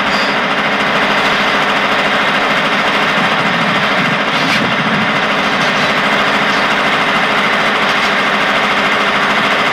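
Air-conditioner outdoor units running: a steady, loud machine hum with fan noise.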